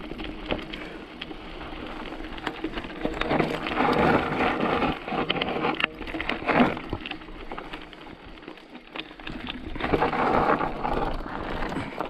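Mountain bike riding down a rough dirt trail: tyre noise over dirt and stones with the bike rattling and clicking, growing louder twice, about a third of the way in and again near the end.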